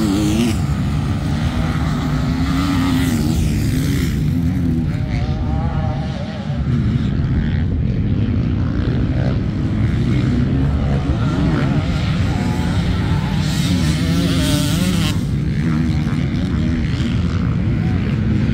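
Motocross dirt bike engines running on the track, revving up and down with the pitch rising and falling repeatedly.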